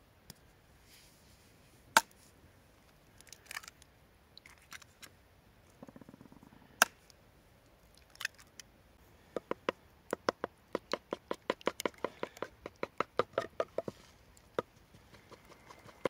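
Two sharp single knocks, then a wooden stick beating an egg yolk in a wooden bowl: a quick run of clicking strokes, about four or five a second, for several seconds.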